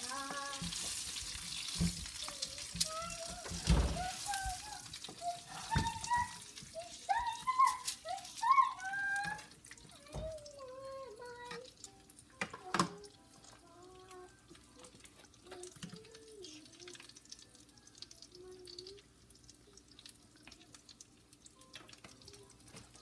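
A voice humming a wordless, gliding tune over a faint hiss for about the first half, then quieter, with a few clicks and knocks.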